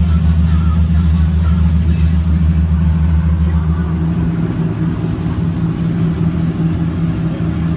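Twin diesel inboard engines of a 48-foot sportfishing yacht running underway, a steady, loud, low drone heard on board. The deepest part of the hum drops away about four seconds in.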